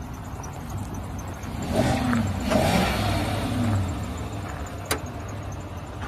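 A motor vehicle's engine swells for about two seconds, with its pitch bending up and down, then eases back over a steady low rumble. A single sharp click comes near the end.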